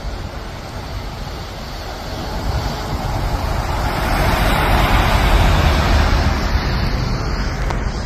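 Steady highway traffic noise under a low wind rumble on the microphone, swelling as a truck passes close by about halfway through and then fading.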